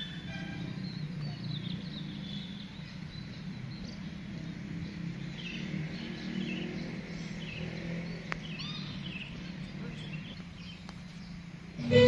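Birds chirping and calling, many short scattered chirps, over a steady low outdoor rumble.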